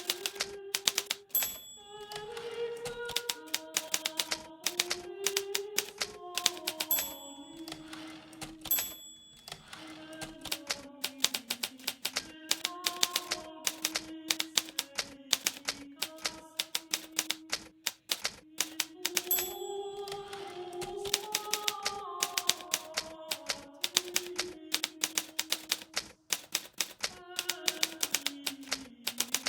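Hermes Baby portable typewriter being typed on steadily: rapid, irregular key strikes clacking against the platen. A slow, soft melody plays underneath.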